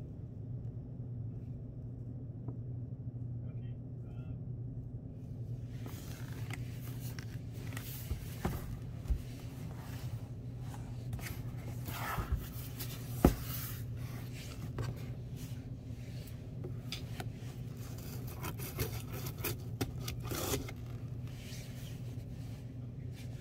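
Cardboard packaging being handled: a green card sleeve slid off a white cardboard box, rubbing and scraping with a few sharp knocks against the desk, the loudest a little past halfway. A steady low hum runs underneath, and the first several seconds hold little but the hum.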